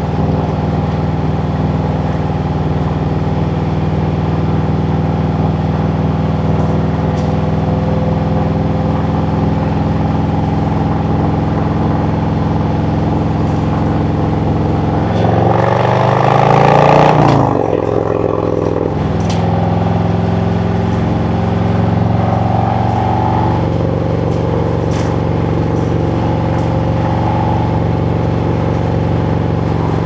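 2017 Harley-Davidson Road Glide Special's Milwaukee-Eight V-twin running at a steady cruise. About halfway through, the engine gets louder and the revs climb for a couple of seconds under throttle, then it drops back to a steady cruise.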